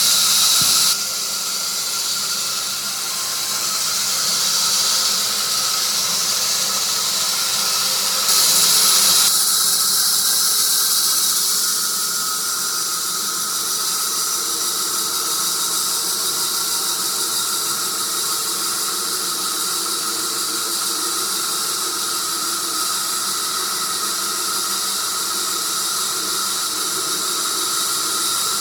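Sawmill blade cutting through a tree of heaven log: a steady, high-pitched squealing whine over a hiss, dropping a little in level about a second in and again about nine seconds in.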